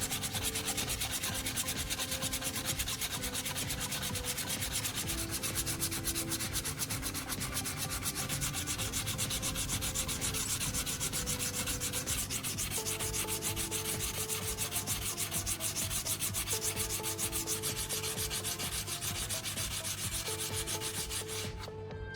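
Sandpaper rubbed back and forth by hand over a hardened plastic repair patch in quick, even strokes, smoothing the cured filler flush with the surrounding plastic. The sanding stops shortly before the end.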